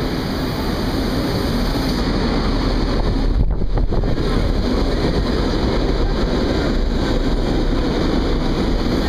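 Rome Metro train entering the station and running past along the platform: a loud, steady rumble of wheels on rails that swells about three seconds in as the cars come alongside.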